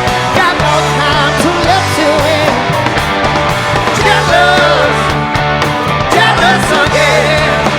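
Rock music with a steady low bass line and wavering lead lines.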